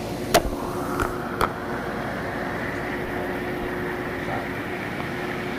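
Hot tub jets running: a steady rush of churning water over the pump's hum. A few sharp knocks come in the first second and a half.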